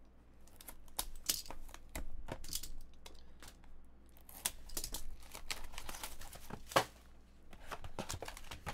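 Trading card packaging being torn open and crinkled: a run of irregular rips and crackles, with cards being handled.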